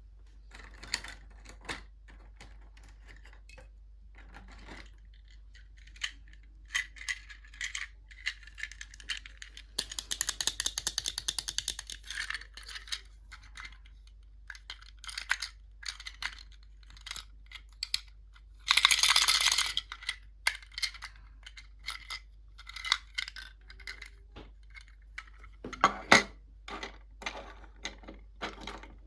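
Small plastic toy pieces clicking, tapping and rattling as they are unpacked and handled, with a quick run of rapid clicks about ten seconds in and a brief scratchy rustle about two-thirds of the way through.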